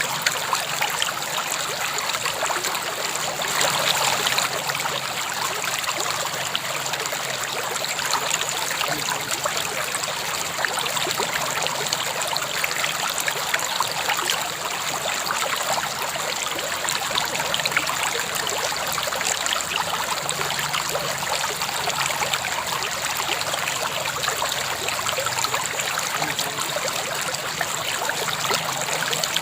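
River water flowing steadily over stones, a continuous splashing rush.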